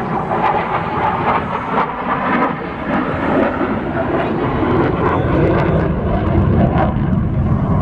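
Airplane flying past, its engine noise a loud, steady rush with a rumble that builds in the second half.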